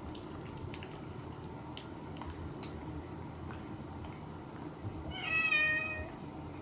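A domestic cat meows once, a single call of about a second near the end, holding a fairly steady pitch. Before it there are only a few faint clicks.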